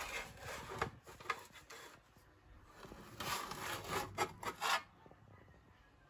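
Metal slotted spatula scraping along a black nonstick steel baking tray as it slides under hasselback potatoes to lift them. The scraping comes in two spells with a few sharp clicks of metal on the tray, the second spell ending about five seconds in.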